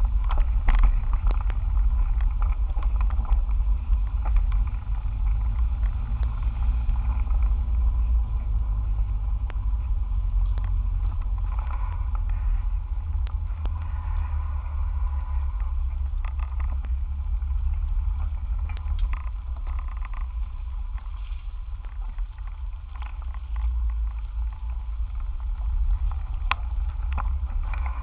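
Steady low rumble of wind and road vibration on the microphone of a camera mounted to a bicycle's handlebars while riding, with scattered small clicks.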